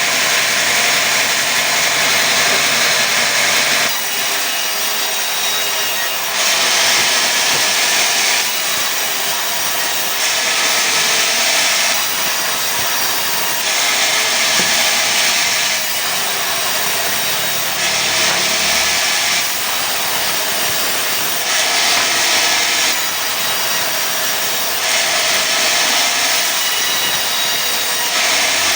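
Sawmill saw cutting pine into boards, running continuously, with louder, higher-pitched stretches alternating with duller ones every two to three seconds.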